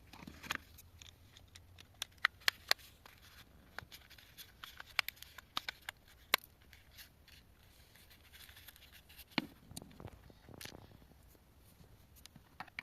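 Irregular small clicks, taps and light scrapes of hand tools and plastic parts being worked on, some in quick clusters.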